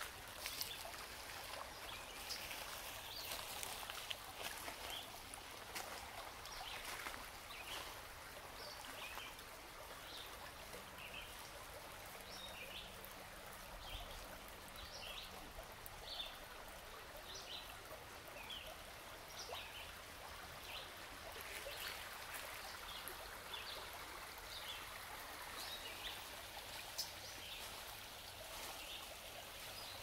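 Shallow creek water running over gravel, a steady faint rushing hiss, with a bird repeating short high chirps through the middle of the stretch.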